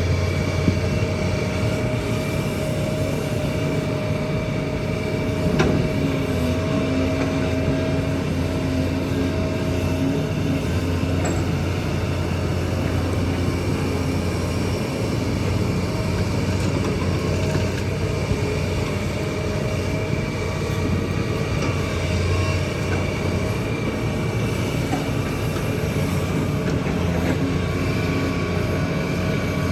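Kobelco excavator's diesel engine running steadily while working, with a steady whine above the engine note and a single knock about six seconds in.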